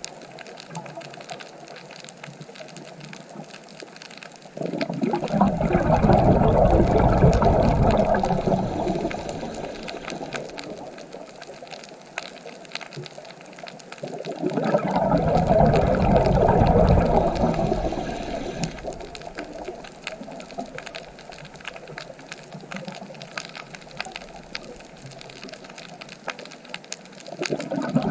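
Ocean waves breaking on the shore: two surges about ten seconds apart, each rising suddenly and then washing out over several seconds, with a quieter hiss between them and a third wave starting near the end.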